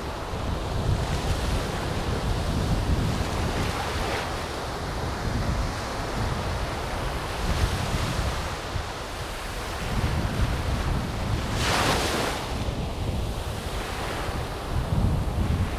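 Surf washing on a beach with strong wind buffeting the microphone in a heavy low rumble. A louder rush comes late on.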